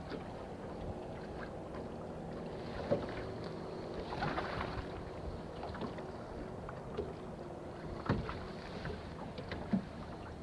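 Small fishing boat sitting on open water with a steady low hum, likely its bow-mounted electric trolling motor, under light wind. A few sharp small knocks come about three seconds in, around eight seconds and near the end.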